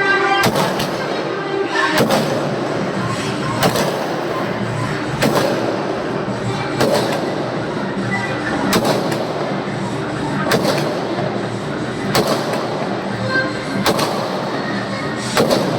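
Aerial firework shells (sky shots) going off in a steady series, about ten sharp bangs spaced one and a half to two seconds apart, over a continuous noise of bursts and crackle.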